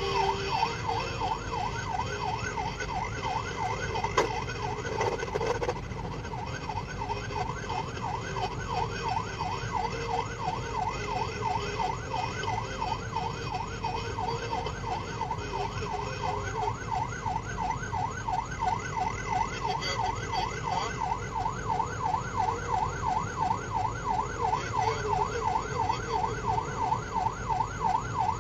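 Police car siren sounding a fast, rapidly repeating rise-and-fall yelp over the steady noise of the car's engine and tyres at speed. A single sharp knock sounds about four seconds in.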